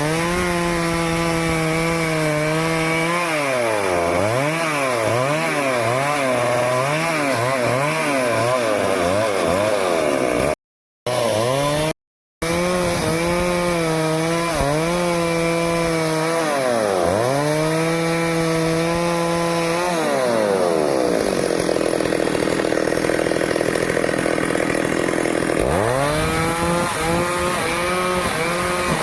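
Stihl chainsaw cutting teak wood, its engine pitch swinging up and down again and again as the throttle is worked and the chain loads in the cut. The sound drops out completely twice, briefly, around 11 and 12 seconds in, and the engine pitch sweeps back up near the end.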